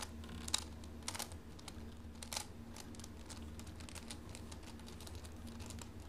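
Plastic layers of a 4x4 Rubik's cube clicking as they are turned by hand through an algorithm: a scatter of faint, irregular clicks over a low steady hum.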